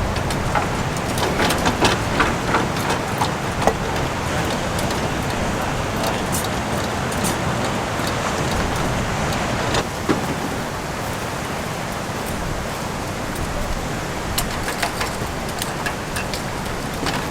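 Strong wind buffeting the microphone over the rush of surf, with scattered sharp clicks and taps, most of them in the first few seconds and again near the end.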